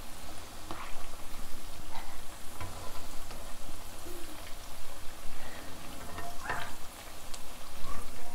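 Gram-flour pakoras deep-frying in hot oil in a karahi, a steady sizzle, with a few scrapes and taps of a spatula against the pan as they are turned over.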